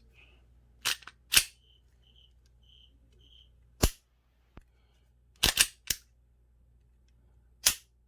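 Sharp metallic clicks and snaps of a Glock 43 pistol being cycled in a function check, with the slide racked and the trigger dry-fired. There are about eight clicks, several in quick pairs.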